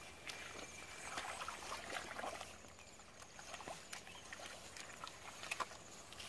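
Footsteps squelching and splashing through wet mud, in irregular soft sucks and slaps. Short high trills recur a few times.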